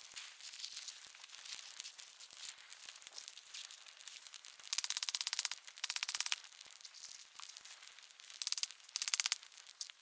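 Small campfire of dry twigs and pine needles crackling steadily, with louder bursts of fast crackling about halfway through and again near the end.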